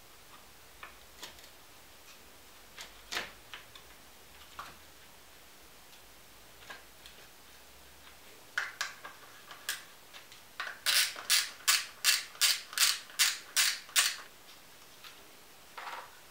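Clicks and taps from handling a BMW E39 window regulator's plastic motor housing, cables and metal rail, scattered at first, then a run of about ten sharp, evenly spaced clicks, roughly three a second, about two-thirds of the way in.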